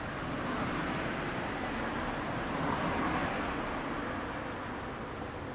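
Motor vehicle noise without a clear engine note, swelling to a peak about three seconds in and then fading.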